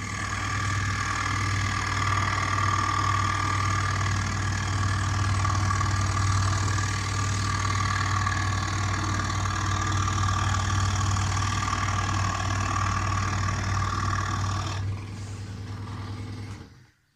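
Scroll saw with a spiral blade running steadily, a strong low hum under a higher buzzing whine. About fifteen seconds in the higher sound drops away, leaving only the hum, and then the saw shuts off.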